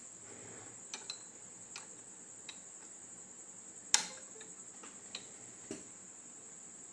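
Scattered light clicks and taps from handling an Arduino board and mini breadboard on a wooden desk, with one sharper knock about four seconds in. A steady high-pitched tone runs underneath.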